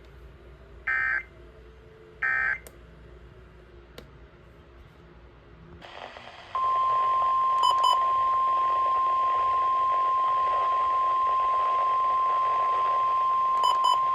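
Emergency Alert System end-of-message signal: short buzzy data bursts about a second apart. Then, about six seconds in, a weather radio receiver comes on with a hiss and sounds the steady 1050 Hz NOAA Weather Radio alert tone, marked by two quick double beeps.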